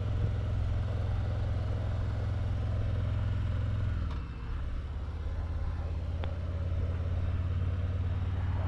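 Motorcycle cruising at road speed: a steady low engine drone with wind and road noise. It drops briefly a little over four seconds in, as if the throttle eases off, then builds again.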